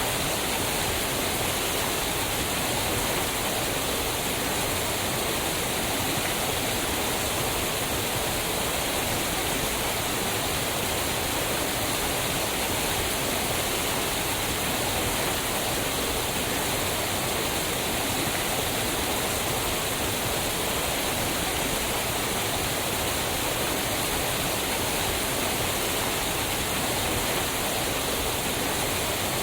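Waterfall: fast water falling onto rocks, a steady, even rush of noise that doesn't change.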